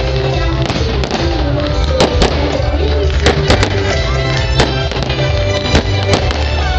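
Fireworks bursting and crackling, many sharp bangs in quick succession, over loud music with a strong bass.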